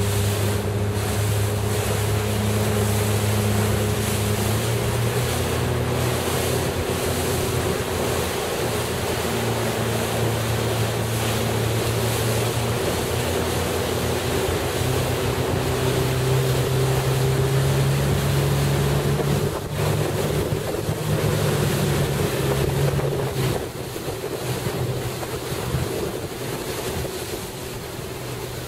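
Motorboat engine running at speed, its pitch stepping up and down a few times and easing off near the end. A constant rush of wind on the microphone and water splashing runs underneath.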